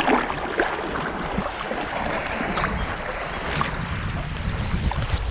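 River water rushing around a kayak running a small rapid, a steady wash with scattered short splashes.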